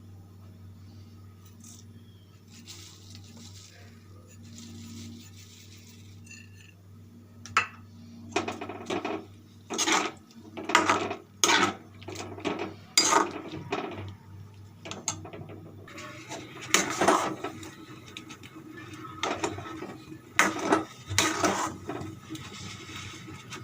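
A utensil scraping and knocking against a cooking pan, about once a second from roughly a third of the way in, over a steady low hum.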